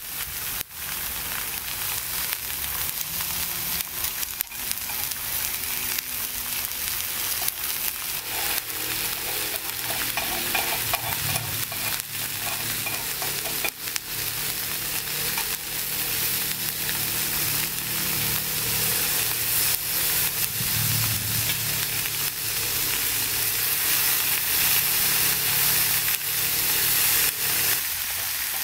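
Strips of raw pork belly frying on a hot round Korean grill pan: a steady sizzle with many small pops of spitting fat, getting slightly louder as it goes.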